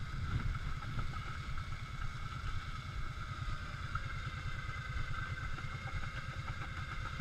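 ATV engine running steadily at idle, a fast low pulsing rumble that holds the same pitch throughout, with a steady high drone above it.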